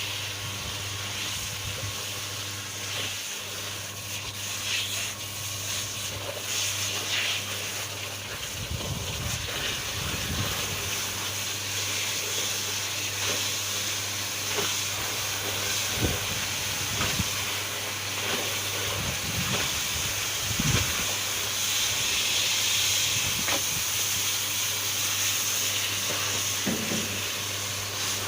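Washing machine running with clothes and water inside: a steady motor hum under a constant hiss of water, with a few faint low knocks.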